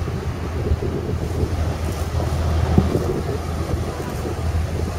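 Jeep Wrangler Rubicon's 4.0-litre inline-six engine running at low revs as the Jeep crawls up a rock ledge, with wind buffeting the microphone. There is a single knock a little under three seconds in.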